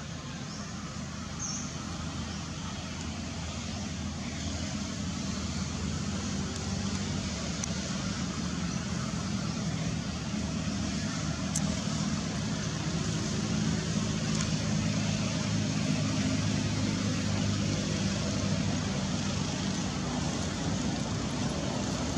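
Steady low rumbling background noise that slowly grows louder.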